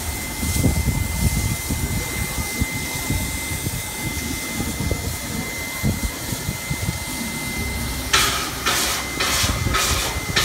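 NSW C36 class 4-6-0 steam locomotive 3642 hissing steam with a low rumble, then starting to chuff near the end: about five sharp exhaust beats, roughly two a second, as it moves off slowly.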